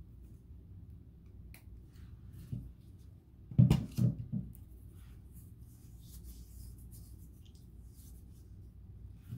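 Quiet room tone with small clicks and rustles of handling, as of an earring being fastened. About three and a half seconds in, a quick run of three or four dull knocks is the loudest sound.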